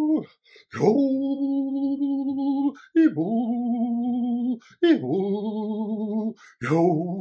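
A man's solo voice singing an improvised chant of long held notes, about four in a row, each about a second and a half long with a short break between, stepping lower one after another.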